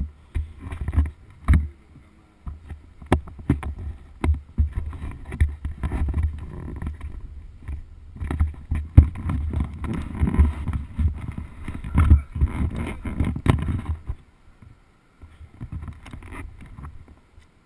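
Wind buffeting and rubbing on a helmet-mounted camera's microphone, a low irregular rumble with scattered knocks as the helmet moves; it dies down about three-quarters of the way through.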